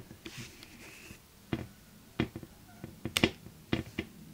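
Hands wiping a camera lens dry with a microfibre cleaning cloth: a faint rubbing in the first second, then about six sharp clicks and taps as fingers and cloth work over the lens and camera body.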